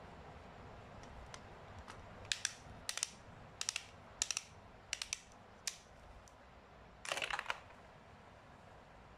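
Sharp plastic clicks as a toy spinning top is fitted into and wound on its launcher, coming in little clusters of two or three about every two-thirds of a second. Near the end comes a half-second rattling burst as the top is launched.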